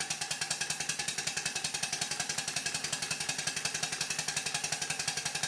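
Single-cylinder model traction engine running fast on compressed air: a rapid, even beat of exhaust puffs, about ten a second.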